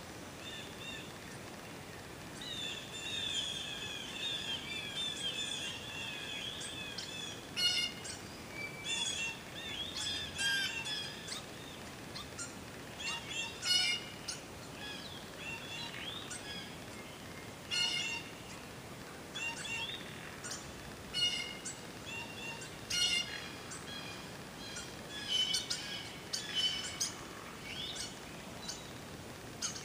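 Several songbirds calling and singing: a rapid trilled song starting about two seconds in and lasting several seconds, then a stream of short, sharp chirps and whistled notes over a faint steady hiss.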